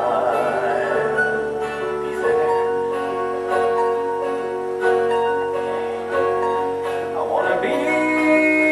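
Live stage-musical band music: sustained chords with guitar, and a voice singing a held, wavering note at the start and again near the end.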